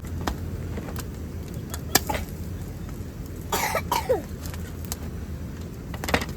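A person coughing once about three and a half seconds in, over a steady low rumble, with a few sharp clicks before and after.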